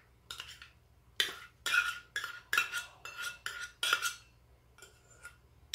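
Metal spoon scraping and tapping margarine out of a small stainless-steel bowl: a dozen or so short, irregular strokes, each with a light metallic ring.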